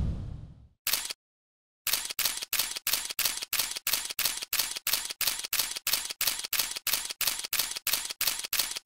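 Camera shutter sound effect, clicking in an even rhythm about three times a second, one click per photo frame. It starts after a lone click about a second in, while a loud swoosh dies away at the start.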